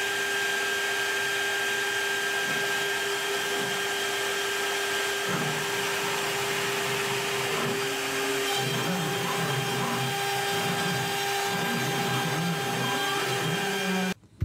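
3 kW air-cooled CNC router spindle running at speed, with a steady high whine and fan hiss. About five seconds in, a rougher, uneven noise joins as the bit cuts into the plywood. The sound cuts off abruptly just before the end.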